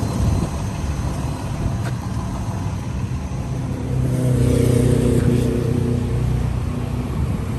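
Road traffic: a car drives past with a steady low rumble, and its engine note swells to its loudest about four seconds in before fading after about six seconds.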